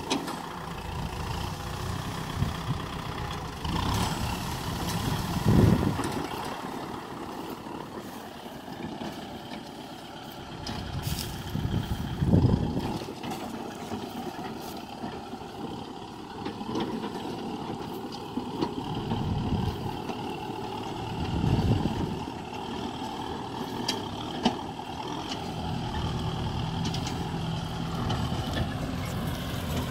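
Kubota M6040SU tractor's diesel engine running steadily as the tractor drives over rough ground towing a trailer, with a few brief louder swells.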